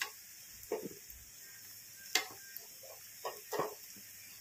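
Steel spatula scraping and knocking against an iron frying pan several times, over a faint sizzle of gram-flour-battered Malabar spinach leaf fritters shallow-frying in oil.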